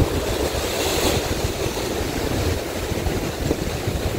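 Wind buffeting the microphone over a steady wash of sea and boat noise, with a brief brighter swell of hiss about a second in.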